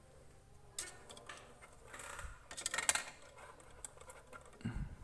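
Thin ABS plastic figure parts clicking and rattling against each other as an accessory piece is handled and pushed onto the figure. The clicks are scattered, with a louder cluster about three seconds in and a soft thump near the end.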